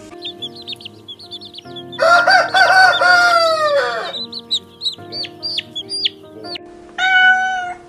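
A rooster crowing once, about two seconds in, a long call that falls in pitch at its end, with chicks peeping in quick, high, falling notes before and after it. Near the end comes a shorter call held on one pitch.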